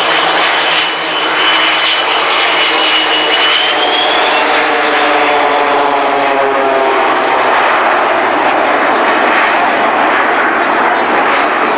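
Low flypast of a Boeing 727 trijet together with four small propeller aerobatic aircraft: a loud, steady jet roar with a high whine. A set of engine tones slides down in pitch about halfway through as the formation passes.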